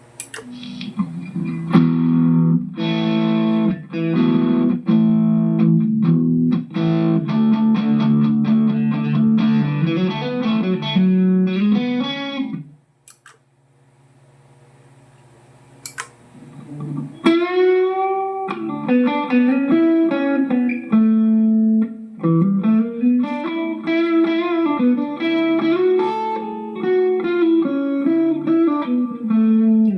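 Electric guitar played through a Mooer GE150 Pro LI multi-effects processor: chords struck in a steady rhythm for about twelve seconds, a short pause, then a melodic line with bent notes.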